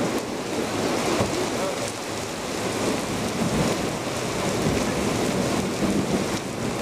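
Heavy downpour falling on a flooded street and pavement: a steady hiss of rain splashing into standing water.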